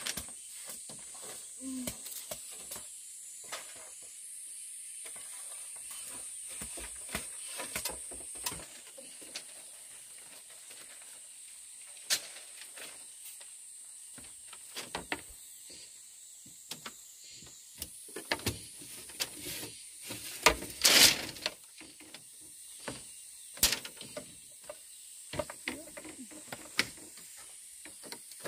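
Scattered light knocks and clicks at irregular intervals over a steady high hiss, with one louder rustling scrape about two-thirds of the way through.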